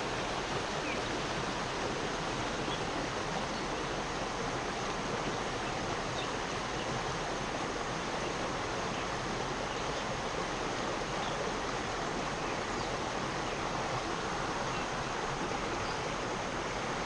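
Steady rushing of flowing creek water.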